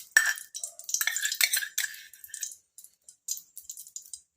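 Ghee crackling as it melts in a hot kadhai, with light clicks of metal on the pan. The crackle is dense for the first two and a half seconds, then thins to scattered pops.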